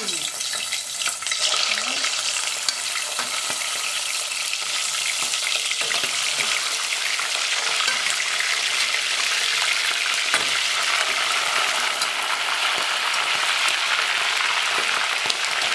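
Chicken pieces frying in hot oil in a stainless steel pot: a steady, dense sizzle full of fine crackles.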